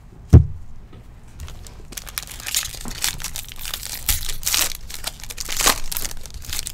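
A single dull thump just after the start, then the plastic wrapper of a Topps baseball card pack crinkling and tearing as it is opened.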